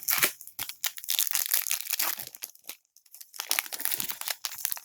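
Plastic trading-card pack wrapper being torn open and crinkled, in two spells of crackling with a short pause about three seconds in.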